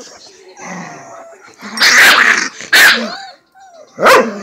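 Dogs scuffling: loud harsh snarling and yelping bursts, the biggest about two, three and four seconds in, with short whimpers between, as an adult dog pins and corrects a puppy.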